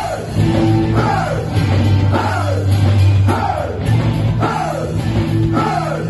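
Live rock band playing loud, with distorted electric guitar, bass and drums. A falling, sliding phrase repeats about once a second over a heavy bass line.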